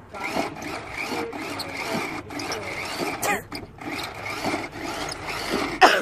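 Small electric motors and gearboxes of a toy remote-control tank whirring as its tracks drive it over concrete, with a short loud noise near the end.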